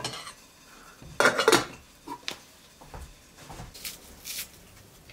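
Pots and kitchen utensils clattering as they are handled, loudest about a second in, with a sharp clink a moment later. Near the end come two short scraping strokes of a knife peeling an onion.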